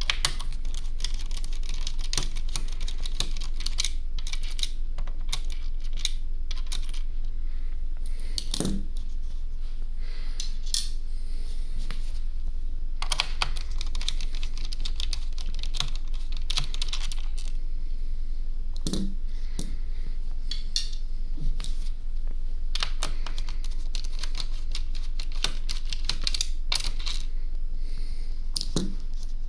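Small screwdriver backing screws out of a laptop's plastic underside: a steady run of light clicks and ticks, with a few heavier knocks about every ten seconds, over a steady low hum.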